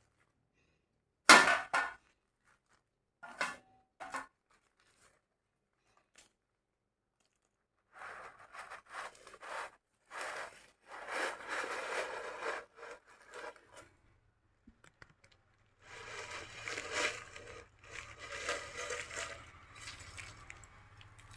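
Kitchen utensil handling on a tray of set coconut candy. There is a sharp knock about a second in, then a couple of small clicks. Later come stretches of scraping and rustling as the pieces are cut and lifted, with a low hum under the last few seconds.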